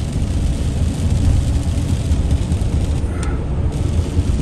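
Inside a car's cabin on a wet freeway: a steady low rumble of tyres and engine road noise. A brief higher chirp sounds about three seconds in.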